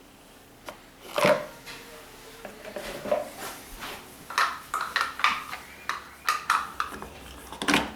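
Plastic dispenser tubs and inserts of a washing machine's detergent drawer clicking and clattering as they are handled and fitted back in place: a few knocks early, then a quicker run of light clicks in the second half.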